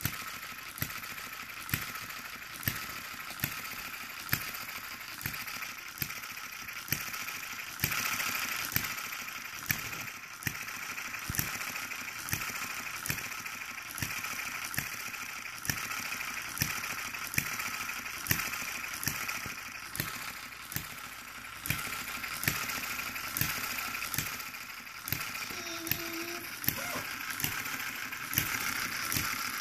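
One-third scale model of a 1/2 hp New Holland single-cylinder gas engine running, firing with a sharp pop about once a second over a steady hiss.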